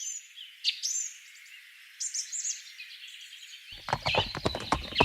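Small birds chirping in short, arching calls. Near the end, a quick run of short clucks from chickens joins in.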